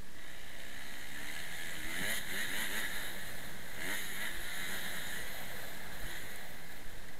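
Motocross bike engine running under way, picked up by a helmet camera. Its pitch rises and drops back quickly a couple of times around the middle, over a steady rush of noise.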